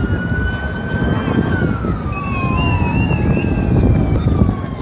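Aerobatic display jet roaring past, its engine whine falling in pitch after about a second and a half.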